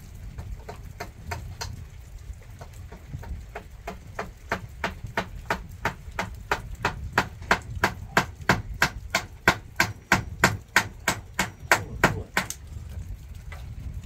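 Quick, even hammer taps on a nail in a wooden ceiling beam, about three a second, faint at first, then growing louder and stopping suddenly near the end.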